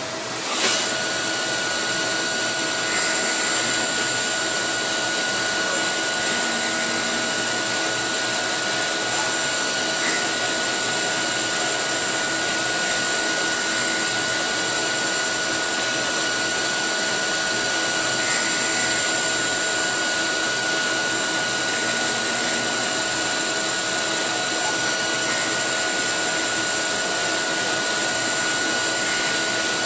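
Hardinge T42 CNC lathe running steadily: a constant one-pitch whine over an even hiss, starting with a click just under a second in.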